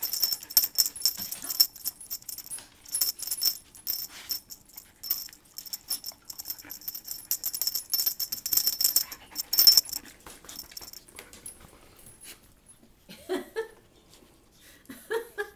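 Small metal tags on a dog's collar jingling in quick, irregular clinks for about ten seconds, then dying away.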